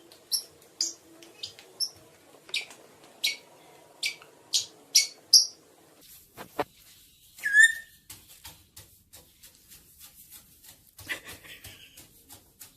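A small bird giving short, sharp chirps about twice a second. Then comes one steeply falling whistle and a run of faint clicks and taps.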